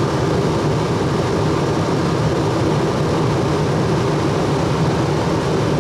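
13,500 BTU RV rooftop air conditioner's blower fan running steadily in the ceiling unit directly overhead, a loud even whooshing hum.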